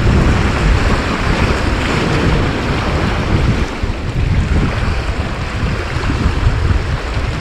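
Strong wind buffeting the microphone, a loud rumble that rises and falls with the gusts.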